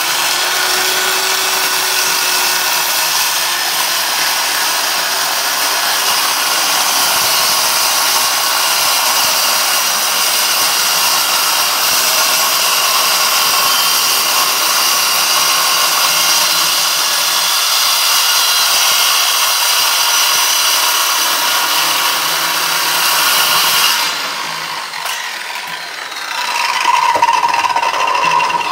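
Handheld electric circular saw running and cutting through 9 mm plywood in one long, steady cut. About 24 seconds in, the cutting noise drops away, and a quieter, steadier whine follows near the end.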